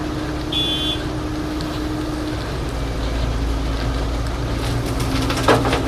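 Heavy machinery diesel engine running steadily, with one short electronic warning beep about half a second in and a burst of knocks and clatter near the end.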